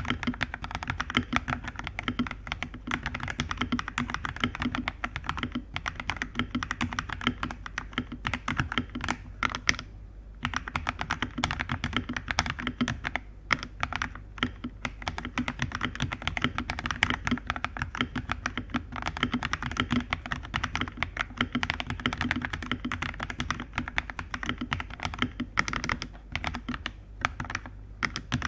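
Fast, continuous typing on a Redragon TS68 hot-swap mechanical keyboard with factory-lubed Lemon Thin switches and a thick silicone layer under the PCB. The typing pauses briefly a few times, most clearly about ten seconds in.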